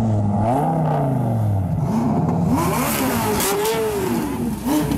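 Sports car engine being revved in a series of quick blips, its pitch rising and falling several times. The later revs go higher and sharper.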